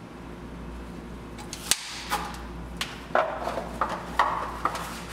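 Flexible plastic cottle strip being worked loose and peeled away from a plaster block on a wheel head: a series of sharp clicks and knocks, with scuffing of plastic against plaster in the second half, over a steady low hum.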